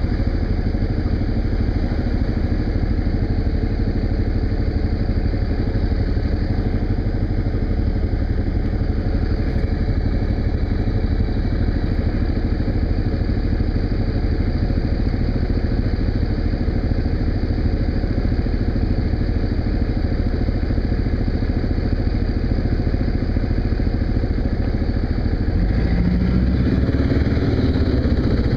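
Kawasaki KLR single-cylinder motorcycle engine running steadily while riding, with wind and road noise. Near the end the engine note shifts and rises.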